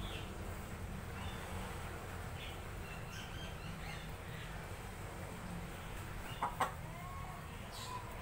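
Chicken clucking softly in short scattered calls, with two sharp knocks about six and a half seconds in.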